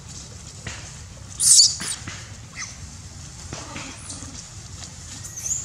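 Macaque squealing: one loud, high-pitched squeal about a second and a half in, then a few shorter, fainter squeaks, with another near the end.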